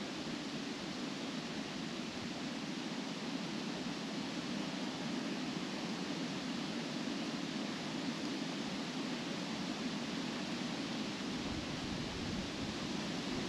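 Steady wind blowing through trees, the leaves rustling in an even rush.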